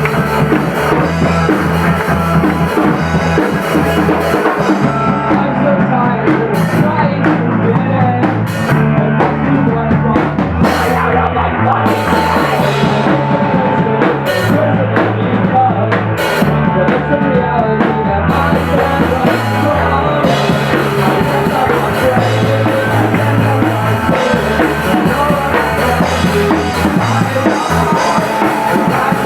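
Live rock band playing loud: drum kit, bass and guitar. The high cymbal wash drops out for about a dozen seconds in the middle, then comes back.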